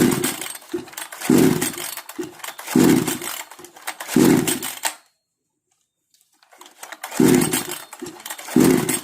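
A 58 cc two-stroke petrol chainsaw is cranked with its new recoil starter rope. There are six quick pulls, in two runs of four and two about a second and a half apart, each a short whirr of the engine turning over. It never fires: the saw has a no-start problem.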